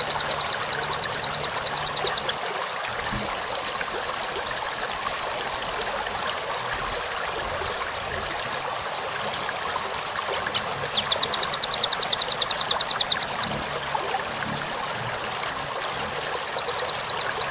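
Rambatan (velvet-fronted nuthatch) song: fast trills of high, sharp chips, roughly a dozen a second, in runs of a second or two broken by single chips and short pauses, over a steady background hiss.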